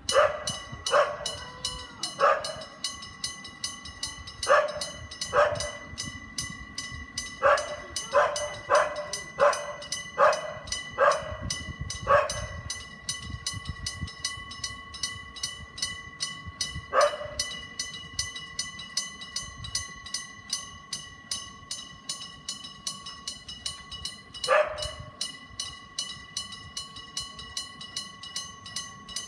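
Electric bell of a Japanese railway level crossing ringing with rapid, evenly spaced strokes, about three a second: the warning that a train is coming. A dog barks loudly over it, in a run of barks through the first half, then twice more.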